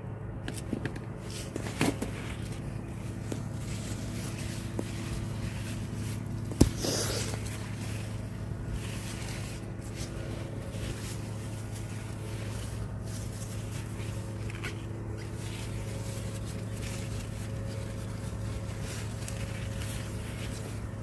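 A steady low hum runs throughout, with leaves rustling as a hand pushes through eggplant plants, and a sharp click about six and a half seconds in.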